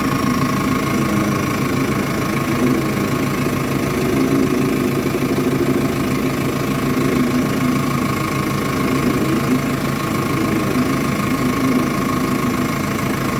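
Vehicle engine idling steadily, with a fast even pulse and a thin steady whine above it. It carries an extraneous noise whose cause the owner does not know.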